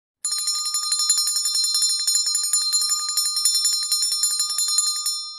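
A bell rung rapidly without a break: a fast, even run of strokes over a steady ringing tone. The strokes stop near the end and the ringing fades out.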